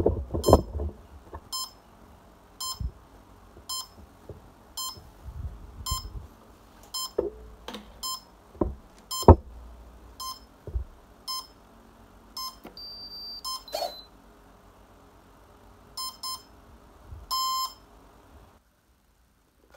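Short electronic beeps about once a second from an RC plane's electronics, powered up on the flight battery for a servo test, with a few handling clicks and knocks among them, the loudest about nine seconds in. Near the end comes a steady high tone, then a double beep and a quick run of beeps, before the sound drops out.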